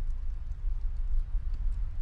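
Snowstorm wind blowing as a deep, gusting rumble, with a few faint crackles from a wood fire.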